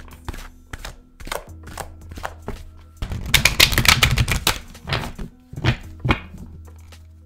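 Tarot cards being shuffled. Scattered taps and snaps give way, about three seconds in, to a dense run of rapid card flicks lasting over a second, then a few more snaps. Soft background music plays underneath.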